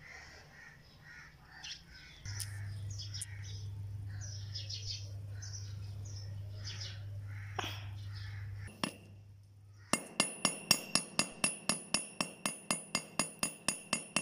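Hammer striking a rivet rod on a steel rail-section anvil: a fast, even run of ringing metal blows, about three or four a second, starting about ten seconds in. Before it, birds chirp over a low steady hum.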